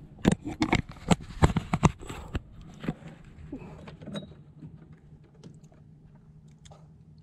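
Sharp clicks and light knocks of fishing tackle being handled in a wooden boat: a quick run of clicks in the first two and a half seconds, then scattered ticks over a faint low hum.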